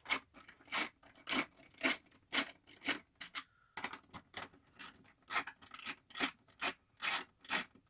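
A small ratcheting hand driver clicking back and forth as it backs out the 8 mm headlight-ring screws on a motorcycle. It makes short rasping strokes about three a second, with a brief pause a little after three seconds in.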